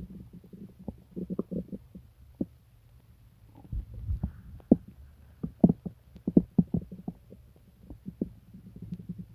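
Human stomach gurgling and rumbling from an upset stomach: a run of short, low pops and bubbling gurgles, with a deeper swell about four seconds in and then a thick cluster of louder pops.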